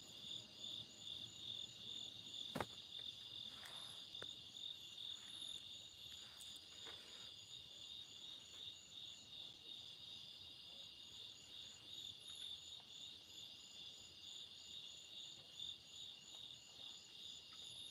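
Faint nocturnal insect chorus: a steady, high-pitched, rapidly pulsing trill. A single sharp click sounds about two and a half seconds in.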